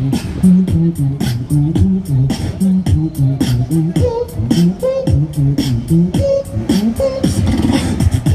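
Street beatboxing played through a portable amplifier: a fast, steady beat of vocal snare and hi-hat clicks over a low bass line. The beat keeps going while the performer crouches at his gear, so it is layered and looped rather than all sung live.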